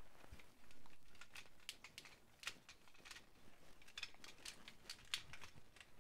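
Faint, irregular clicks and taps of hard plastic parts of a Jinbao Devastator toy being handled and fitted together, a few of them louder snaps.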